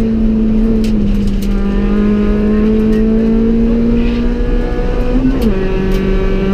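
Honda Civic EK4 rally car's engine running hard at high revs, heard from inside the cabin. Its pitch climbs slowly, then drops sharply about five seconds in, with a few sharp clicks and knocks over it.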